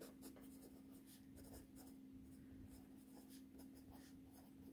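Mechanical pencil's built-in eraser rubbing back and forth on paper in faint, quick strokes, over a low steady hum.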